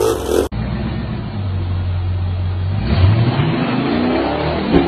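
Rock-crawler buggy engine running under load on a rock climb, revving with a rising pitch about three seconds in. A brief snatch of another recording cuts off about half a second in.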